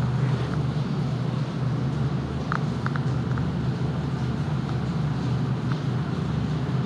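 A steady low machine hum with a hiss over it, and a few faint clicks about two and a half to three seconds in.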